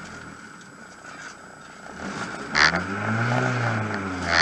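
Rally car engine running, heard from inside the cabin; about two and a half seconds in, the revs rise and fall once. A sharp knock comes as the rev begins and another at the end.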